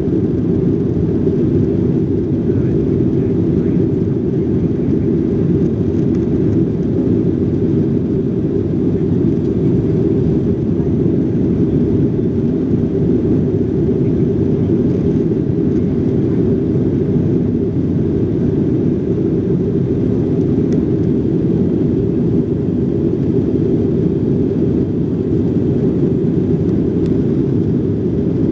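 Boeing jet airliner in flight, its engines and the airflow heard from inside the passenger cabin as a steady, deep rumble.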